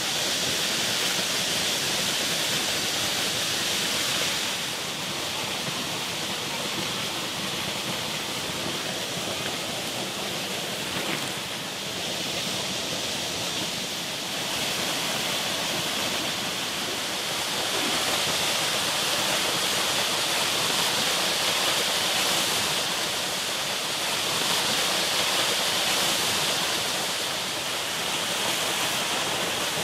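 Stream rushing steadily, a continuous wash of flowing water.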